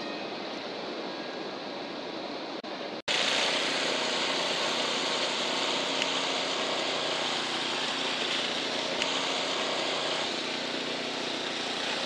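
Diesel locomotive engine running steadily as Ontario Southland Railway unit 181 approaches. It follows, with an abrupt change about three seconds in, a quieter steady rumble from a freight train passing a level crossing.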